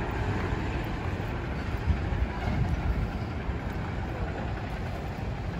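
Large box truck's diesel engine running at low speed as it pulls slowly past, with a steady low engine sound and the noise of other heavy traffic.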